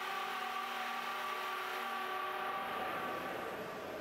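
Long, steady blast of an arena horn, one held pitch with several overtones, fading out in the last second or so.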